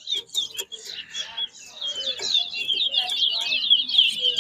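Caged towa-towa (chestnut-bellied seed finch) singing a fast, unbroken twittering song of quick chirped notes.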